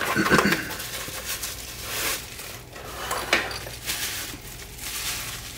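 Hands handling a Sony RX100 IV compact camera and its wrist strap: irregular light rustling with small clicks and taps on the camera body, loudest right at the start.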